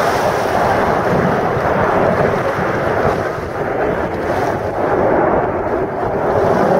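Jet noise from a formation of Aermacchi MB-339 trainers flying overhead: a steady, rumbling rush of sound that sags a little about halfway through before building again.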